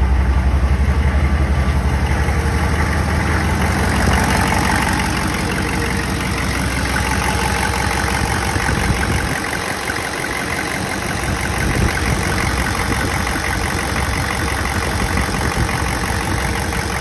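GM 6.5 L turbo diesel V8 idling with its clacky diesel clatter, running on a freshly installed and timed injection pump and fluid damper. About four seconds in, the deep low drone gives way to a brighter, busier clatter as the open engine bay is reached.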